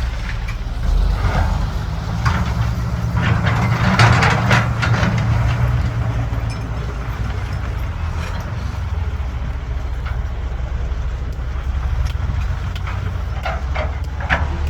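Caterpillar 320BL excavator's diesel engine running steadily under load, with a stretch of knocks and clatter about three to five seconds in.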